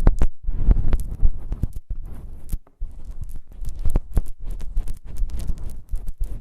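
ASMR ear sounds: close-miked rubbing and scratching, crackly and irregular, broken by many quick clicks and taps.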